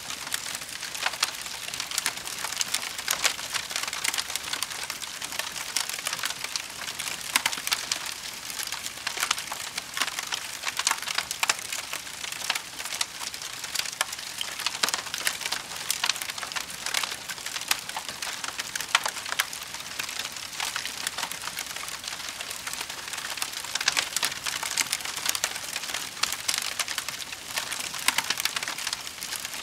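Wood campfire crackling and popping, a steady stream of small sharp snaps over a hiss of burning.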